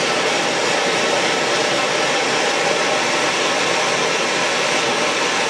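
Gas torch flame burning with a steady, even hiss, held on a brass boss and plate to bring the joint up to silver-soldering heat.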